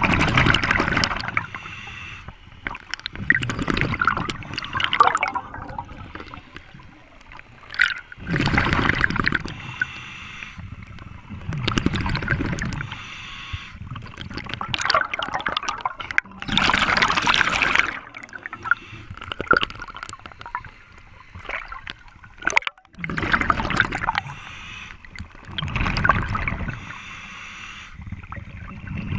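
Scuba diver breathing through a regulator underwater: exhaled air bubbles out in gurgling bursts every few seconds, with quieter stretches between breaths.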